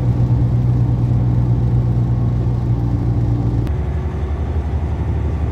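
Truck engine and road noise heard inside the cab while cruising: a steady low drone that changes abruptly a little past halfway to a rougher, lower rumble.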